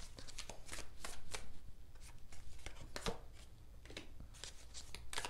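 Tarot cards being shuffled by hand and dealt onto a cloth-covered table: an irregular series of soft card slaps and flicks.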